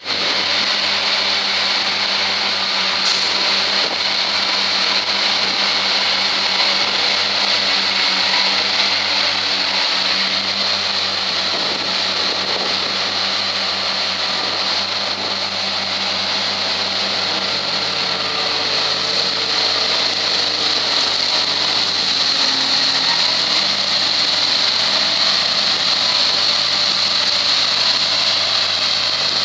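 Tractor and Krone EasyCut B 1000 CV Collect disc mower-conditioner combination running at work, cutting a dense green crop. The tractor engine drones steadily under a constant high-pitched hiss from the mower drive.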